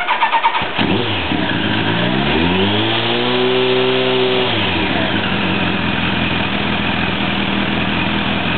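Kawasaki ZZR1100's inline-four engine, fitted with an aftermarket carbon muffler, being started: a brief burst of starter cranking, and it catches within about a second. It rises in revs and falls back over a few seconds, then settles to a steady idle.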